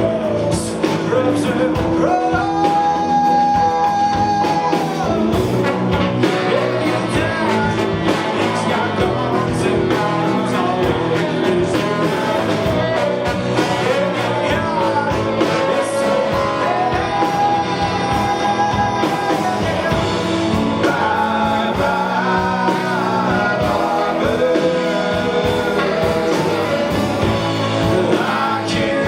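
Live rock band with guitars, bass, drums, trombone and tenor saxophone playing, long held melody notes sliding and wavering over a steady beat.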